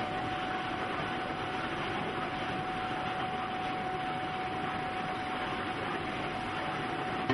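Steady mechanical noise: an even hiss with a constant high whine that does not change pitch or level.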